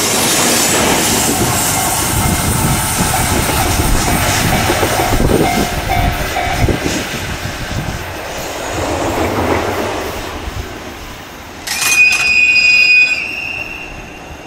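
EF81 electric locomotive running light passes close by, its wheels clattering over the rail joints, then fades as it pulls away. Near the end a train's air horn sounds one high blast about a second and a half long, the loudest thing heard.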